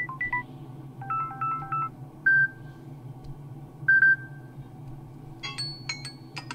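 Samsung Galaxy F34 built-in ringtones playing through the phone's speaker: short electronic melody notes and chimes with pauses between them, a quick run of beeps about a second in and a denser cluster of notes near the end.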